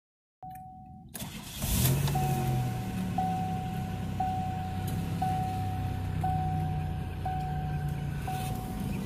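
Oldsmobile Toronado Trofeo's 3.8-litre V6 cranking and catching about a second and a half in, then idling fast at around 1,200 rpm. A warning chime sounds a steady tone about once a second throughout.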